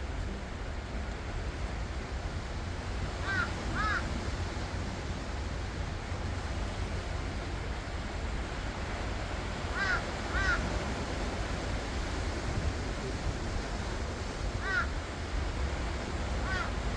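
Ocean surf washing steadily on the shore, with wind rumbling on the microphone. A bird calls in short pairs about three seconds in and again near ten seconds, once around fifteen seconds, and twice more near the end.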